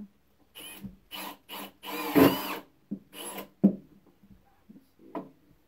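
Cordless drill driving pocket-hole screws into a wooden frame in several short bursts. The longest and loudest burst comes about two seconds in, its motor pitch rising and falling as the screw seats.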